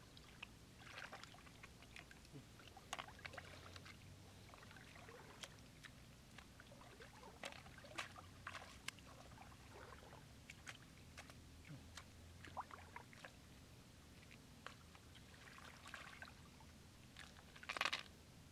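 Faint splashing and trickling of shallow floodwater as hands feel through it and bare feet wade, with scattered light clicks and a louder splash near the end.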